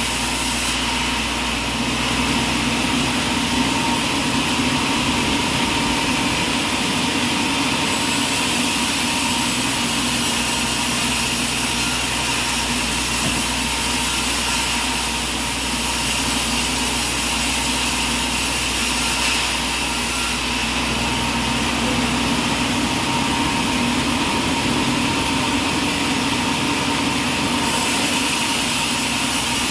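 Sawmill machinery running steadily, a continuous mechanical hum with a high hiss that eases off twice for several seconds.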